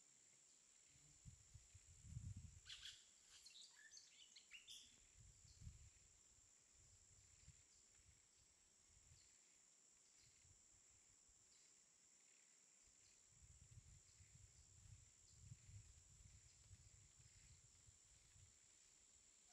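Near silence: a faint steady hiss with soft low rumbles, and a few brief faint chirps about three to five seconds in.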